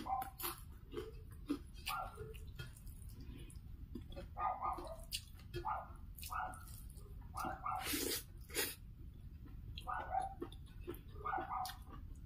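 A dog barking in the background, short yips repeated at irregular intervals. Close-up eating clicks and mouth smacks from hand-eating rice fall in between.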